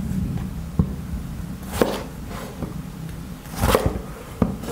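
Chef's knife cutting a bitter gourd crosswise on a bamboo cutting board: about four sharp knocks of the blade through the gourd onto the wood, two of them louder, over a low steady hum.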